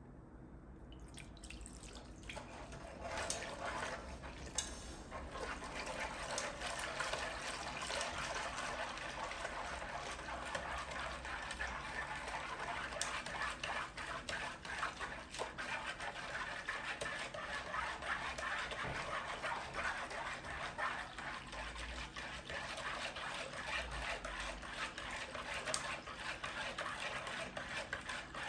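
Steady running water with small splashes and drips, building up over the first few seconds and stopping near the end.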